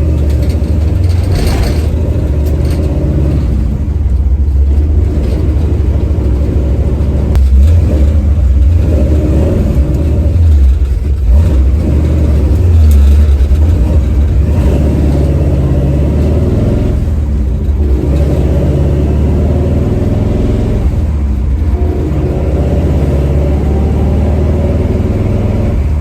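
A 383 small-block Chevy V8 with a Demon carburetor runs as the car is driven. The engine note rises and drops several times as the car pulls through the gears.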